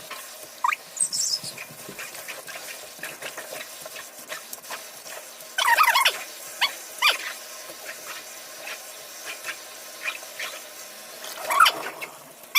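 Short animal calls in brief bursts, about six seconds in and again near the end, over a faint steady hum.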